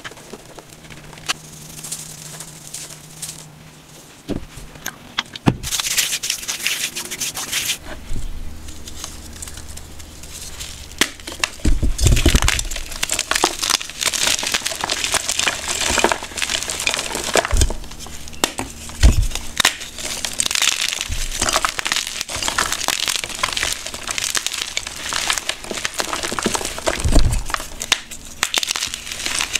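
Blocks of gym chalk coated in pigment powder and glitter crushed and squeezed by hand, a dense run of crunching and crumbling with a few low thumps. The crunching is sparse for the first few seconds, then busier.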